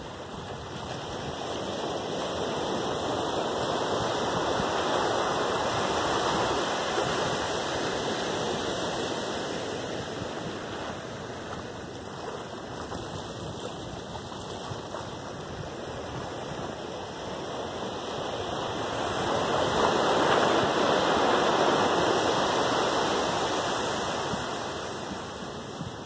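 Small waves breaking and washing up a sandy beach: a steady rush of surf that swells twice, a few seconds in and again about three quarters of the way through.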